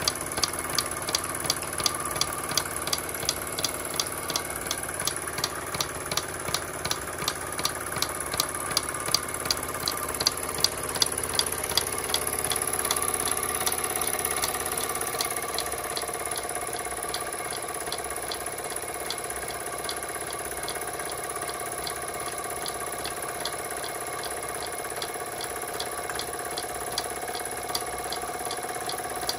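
Jensen 25GR toy live-steam engine running under steam and driving a line shaft of belt-driven miniature machines: a steady mechanical whir with a high steam hiss. A regular click about three times a second is loud for the first twelve seconds or so, then fades.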